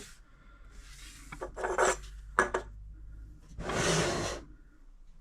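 Scraping and rubbing as objects are slid and handled on a surface: a few short scrapes, then a longer, louder one about four seconds in.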